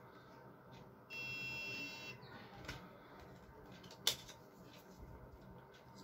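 Small piezo buzzer on an Arduino RFID lock sounding one steady, high-pitched beep about a second long, starting about a second in. This is the lock's signal that an unrecognised card was scanned and access was denied. A single sharp click follows about three seconds later.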